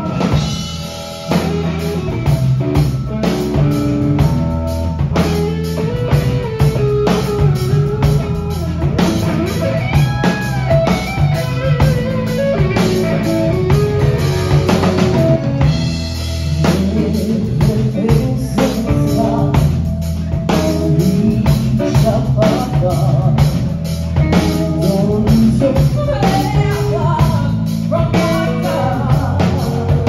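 Live rock band playing: a drum kit keeps a steady beat under bass, electric guitar and keys, with a woman singing lead. The band drops out briefly at the start and comes back in full about a second in.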